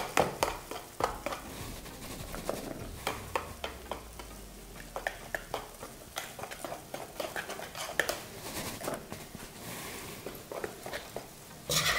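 Wire balloon whisk stirring thin pancake batter in a plastic mixing bowl, an irregular run of quick clicks and taps as the wires hit the bowl while flour is mixed into the milk and eggs. A louder clatter comes right at the end.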